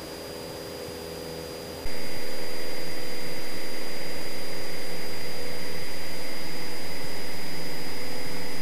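Cessna 172's piston engine and propeller droning steadily in flight, heard inside the cabin. About two seconds in, the sound jumps abruptly louder and hissier and then holds steady.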